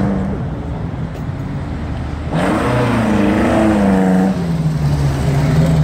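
A classic Alfa Romeo coupe rally car driving through a car-park test. Its engine runs at first, then about two and a half seconds in it comes in loud, the revs rising and falling for a couple of seconds. It then settles to a steadier, lower note.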